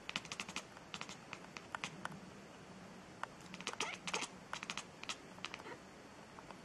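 Quick runs of light, sharp clicks and taps in irregular clusters, like keys being pressed on a keyboard.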